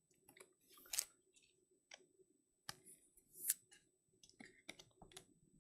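Faint scattered clicks and short plastic rustles from trading cards being slid into plastic sleeves and rigid top loaders, with two louder swishes, about a second in and near the middle.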